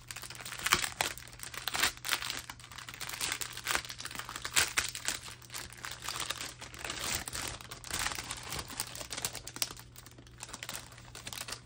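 Clear plastic bag of diamond-painting drill sachets crinkling irregularly as it is handled and pulled at.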